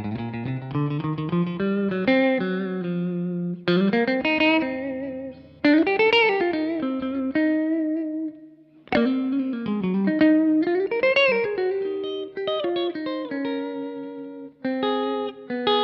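B&G Little Sister Private Build electric guitar played clean through a Suhr Badger 35 amp with added reverb: a single-note lead with string bends that rise and fall, and a short pause a little past halfway.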